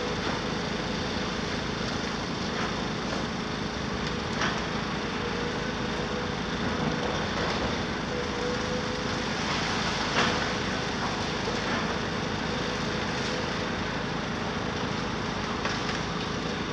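Demolition excavator (Cat 374F UHD) running steadily under load, its diesel engine and hydraulics giving a constant drone with a steady whine. About five short, sharp knocks are spread through it as the crusher works the concrete.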